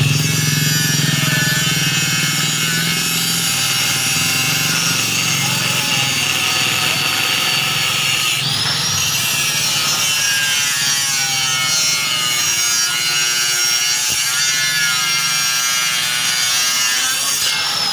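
A power tool running steadily under load with a rasping, grinding sound; about halfway through, its tone changes suddenly and rises in pitch.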